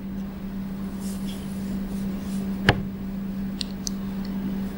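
Room tone with a steady low hum, broken by one sharp click a little under three seconds in and a few faint ticks just after.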